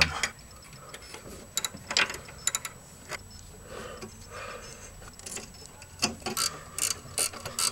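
Ratchet wrench clicking in short runs as a 10 mm bolt is tightened into the power-steering line bracket, with a pause in the middle.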